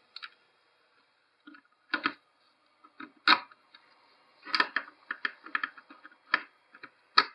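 Scattered short clicks and light knocks of hard plastic as a Corsair H60 liquid-cooler pump block is handled and seated on a motherboard's CPU. About eight of them come at uneven intervals, the loudest about three seconds in and just before the end.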